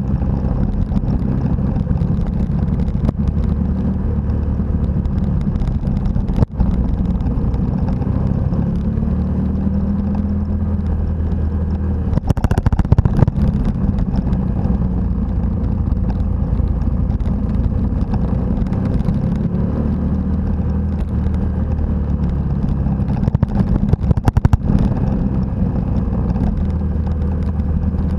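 Motorcycle engine heard from on board, running steadily at road speed on gravel, with wind and road rush over it. There are two brief louder, rougher bursts of noise, about halfway through and near the end.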